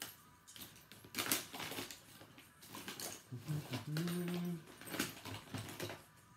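Clicking and rustling of makeup packaging and compacts being handled, a run of small irregular clicks and taps, with a short low hum about four seconds in.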